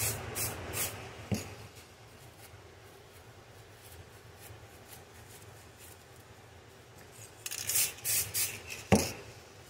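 Plastic wrap being crinkled and dabbed against an RC car body, in short crackly bursts in the first second and again near the end, with a single knock just before the end.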